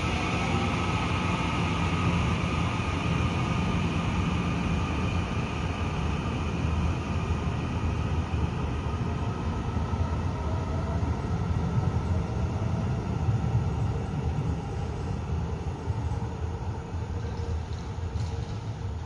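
Taiwan Railway EMU900 electric multiple unit pulling out of an underground station: a steady rail and wheel rumble with a rising whine from the traction motors as it accelerates, easing off toward the end as it moves away down the tunnel.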